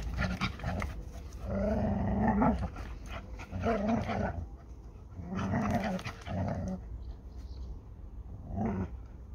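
Dogs play-growling in several short bouts while tugging a ball between them in a game of tug-of-war.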